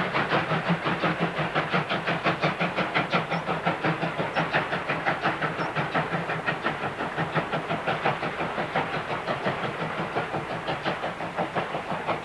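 Steam locomotive hauling a train, its exhaust chuffing in a steady rhythm of about four beats a second, easing a little near the end.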